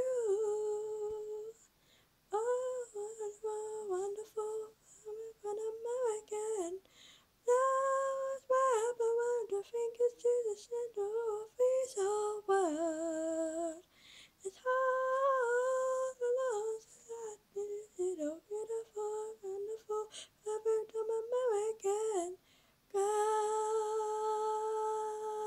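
A girl singing a melody unaccompanied, close to the microphone, in short phrases with gaps between them, then holding one long steady note near the end.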